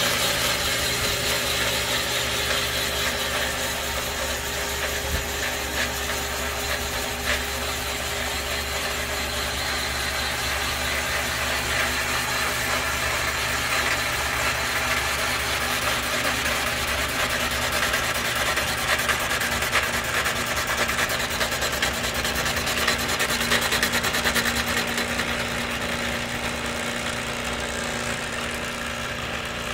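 Portable cylinder boring bar running steadily, its motor humming as the cutter bores a cylinder of a 327 small-block Chevy block 0.060 in oversize, renewing the cylinder wall. The sound starts to fall away right at the end.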